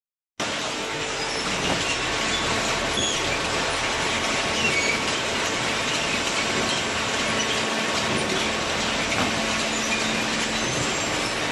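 Hydraulic paper baler running: a steady mechanical noise with a faint hum and occasional light squeaks, starting right after a brief silent cut.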